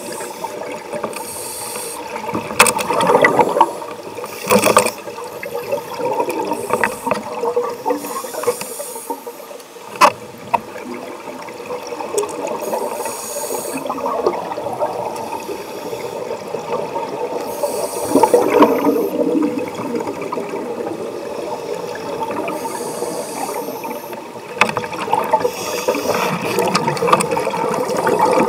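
Scuba regulator breathing heard underwater through a camera's waterproof housing: a steady watery hiss with bubbling bursts of exhaled air about every four to five seconds.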